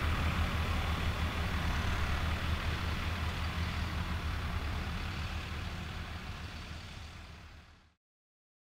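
Tractor diesel engine running steadily with a deep hum, fading out gradually and ending in silence about eight seconds in.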